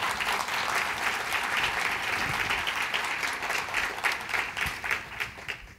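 Audience applauding steadily, thinning out and fading away near the end.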